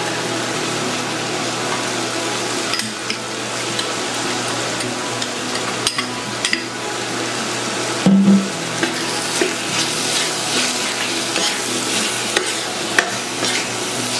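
Onions, bell peppers and tomato paste sizzling in a frying pan, with a metal spoon scraping and clicking against the pan as they are stirred. A brief louder knock about eight seconds in.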